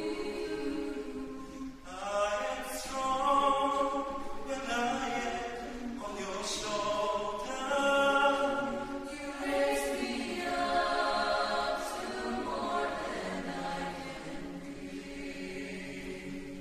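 Mixed chamber choir singing a cappella in several parts: sustained chords with sung words, their hissing consonants sharp over the voices, growing softer toward the end.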